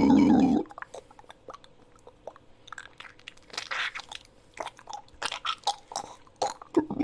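Creature sound effect: a growl that cuts off about half a second in, then a run of irregular crunching and clicking like chewing, busiest in the middle.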